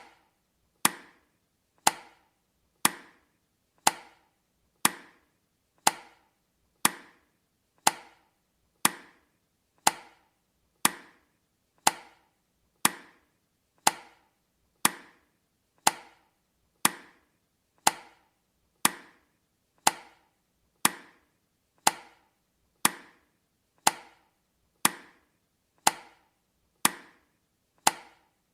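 Countdown timer's tick sound effect: a sharp tick once a second, each one dying away quickly.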